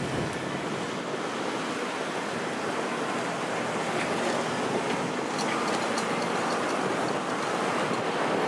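Steady rushing wind noise on the microphone, with the tyre noise of cars rolling over the crossing.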